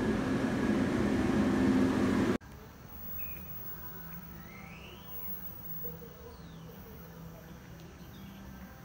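A loud rushing noise that cuts off abruptly after about two seconds, then quiet open-air platform sound: birds chirping a few times over a faint steady low hum from a train still far off down the track.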